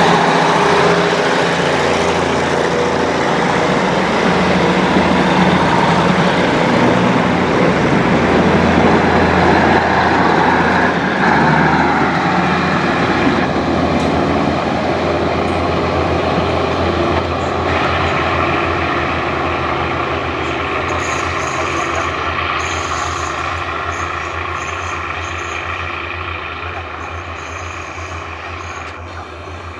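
Diesel-hauled train running past on the rails, with engine and wheel noise. It grows gradually fainter over the second half as it moves away.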